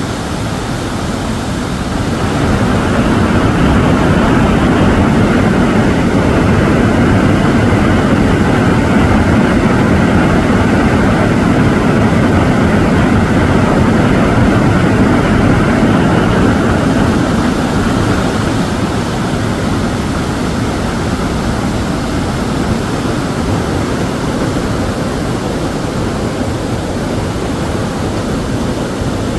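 Loud, steady rush of a flood-swollen waterfall and river running almost level after heavy rain. It eases slightly from about 18 seconds in.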